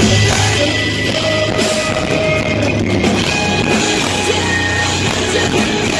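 Live progressive metal band playing loud: electric guitars and a drum kit, heard from within the concert crowd.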